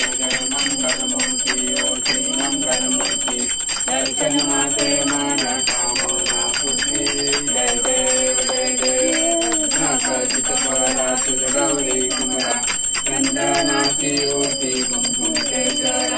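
Devotional aarti singing with a puja bell rung rapidly and without pause, its high ringing tones holding steady under the voices.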